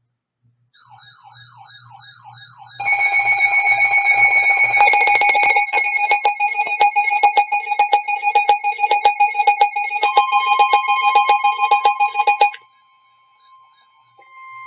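Emergency alert tones announcing a severe thunderstorm warning. A faint warbling, siren-like alarm is followed by loud steady alert tones with rapid, even pulsing that cut off suddenly about twelve and a half seconds in, leaving a single steady tone.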